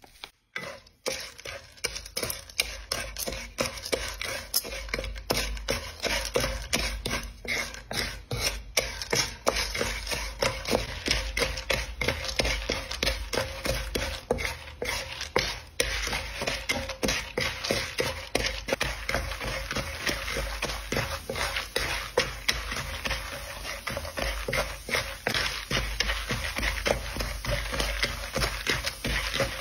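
Popcorn kernels in oil and sugar sizzling and crackling in a nonstick wok, with a wooden spatula scraping and stirring through them. The crackle thickens as the sugar melts and the oil foams.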